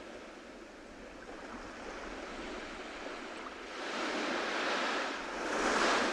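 Ocean waves breaking and washing up a beach: a steady wash of surf that swells twice near the end as waves break.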